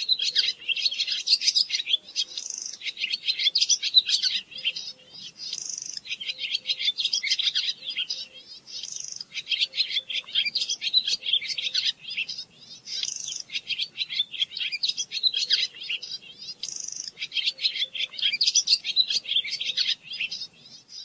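A songbird singing a fast, continuous twittering song, in phrases a few seconds long separated by short pauses.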